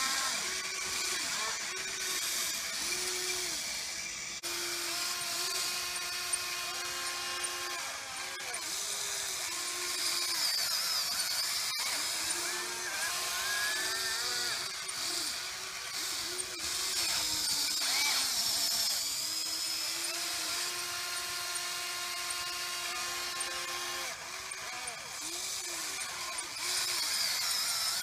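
Electric motors of a Huina RC excavator whining as the machine digs. The pitch shifts, and the motors stop and start again every second or two as the boom, arm, bucket and tracks are worked in turn.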